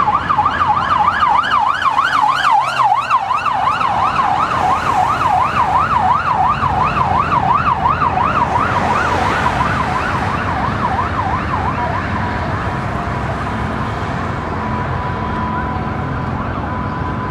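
Dubai Civil Defense emergency vehicle siren on a fast up-and-down yelp, sweeping about two to three times a second, with road traffic beneath. The siren fades out about twelve seconds in as the vehicle moves off, leaving traffic noise and a faint steady tone.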